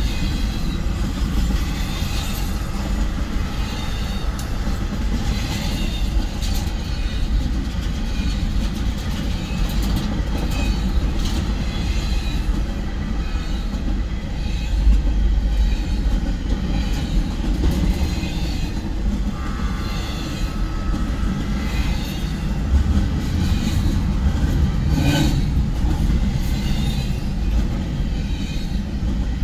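Double-stack intermodal freight train rolling past at a grade crossing: a steady rumble with the regular clickety-clack of the cars' wheels over the rails, heard from inside a car.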